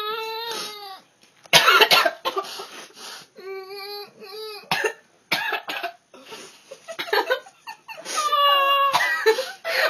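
A person coughing hard after a big spoonful of squash baby food. A loud fit of coughs comes about a second and a half in, then shorter coughs and strained, wavering vocal cries of disgust.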